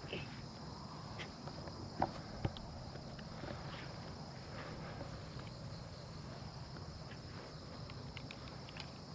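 Insects chirring steadily, with two short light taps about two seconds in, half a second apart.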